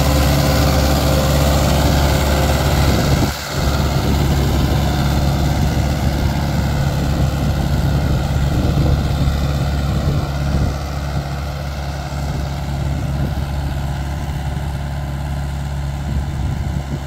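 Mahindra 575 XP Plus tractor's four-cylinder diesel engine running steadily under load while pulling a 9-tine cultivator, getting a little quieter in the second half as the tractor moves off. The revs are sagging 500–700 rpm even on this small implement, far too much for a new tractor; the owner suspects the engine has not yet reached normal working temperature.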